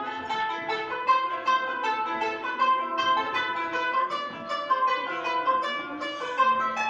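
Armenian kanon (qanun), a plucked trapezoidal zither, being played: a quick, continuous stream of plucked notes.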